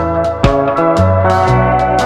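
Background music with a steady beat: guitar and keyboard with drums.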